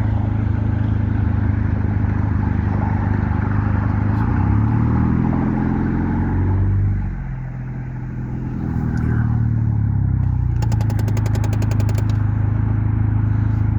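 Car engine and road noise heard from inside a moving car: a steady low drone that eases off and dips for a second or two midway, then picks up again. A quick run of clicks sounds a little before the end.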